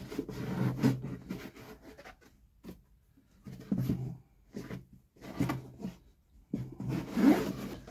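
A portable camping toilet being unfolded and its plastic parts fitted by hand: irregular knocks, clicks and rubbing in several short bursts, the loudest near the end.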